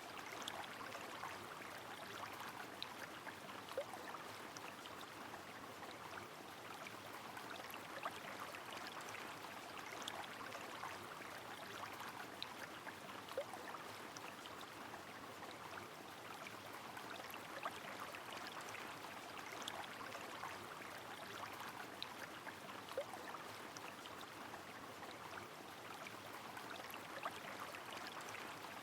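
River flowing steadily mixed with rain, a soft even rush with scattered light drop ticks.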